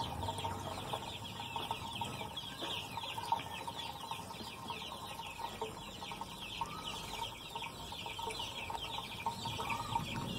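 Birds chirping steadily in the background, a dense run of short high chirps with a few lower calls now and then.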